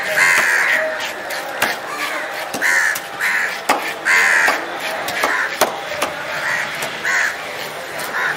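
Crows cawing over and over, about a dozen short harsh calls, over the quick scraping and tapping of a knife scaling a large fish on a wooden block.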